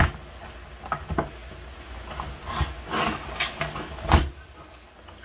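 MSI GF65 Thin laptop's plastic case being handled and turned on a wooden desk: it rubs and scrapes across the desktop, with scattered sharp clicks and knocks, the loudest just after four seconds in.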